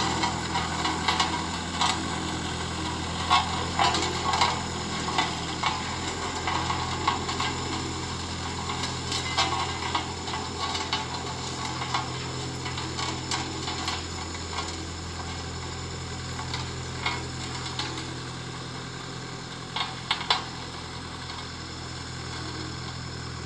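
Road roller's engine running steadily, with frequent irregular clicks and crackling rattles over the hum.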